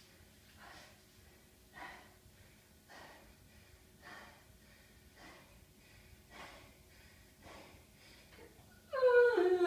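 A person breathing hard, faint breaths about once a second, the panting of recovery from exertion. Near the end a loud, drawn-out voice breaks in.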